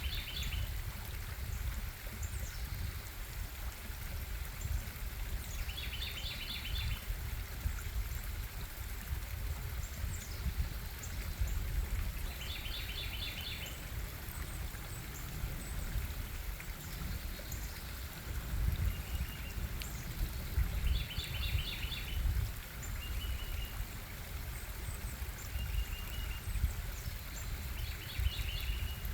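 Stream water flowing with a steady low rush. Over it, a bird repeats a short trilled call about every six to seven seconds, with a few brief single higher notes in between.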